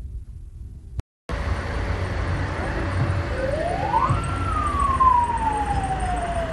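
A siren wailing over steady road and wind noise: its pitch rises about three seconds in, falls slowly for a couple of seconds, then starts rising again near the end. The sound drops out briefly about a second in.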